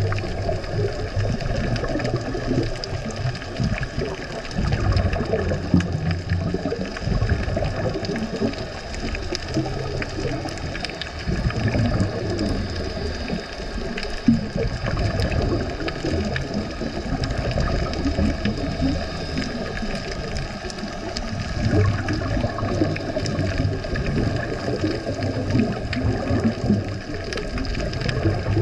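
Underwater sound of scuba diving: a steady muffled water rush with irregular bubbling surges from exhaled regulator bubbles every few seconds, over a faint steady tonal hum.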